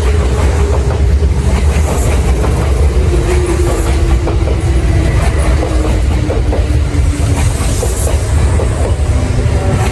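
Kintetsu electric train running through the station with a heavy rumble and wheels clicking over rail joints. A motor tone falls slowly in pitch as the train slows.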